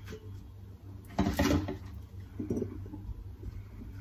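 Lettuce leaves being torn by hand into small pieces: a crisp rip about a second in, then a few softer rustles, over a steady low hum.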